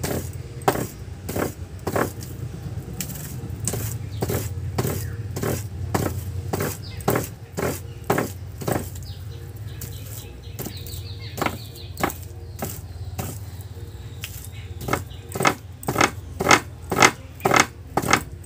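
Hands kneading and squeezing ripe palmyra palm fruit fibres to work the pulp out: a run of short scraping strokes, about one or two a second, faster near the end, over a steady low hum.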